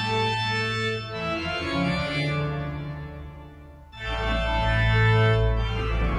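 Organ music: sustained chords that fade away over the first few seconds, then a new loud chord with a deep bass comes in about four seconds in.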